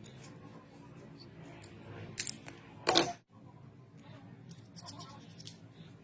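Crisp clicks and snips of close-up hand work: a sharp click about two seconds in, a louder one about three seconds in, and a quick run of small clicks near the end, over a faint steady low hum.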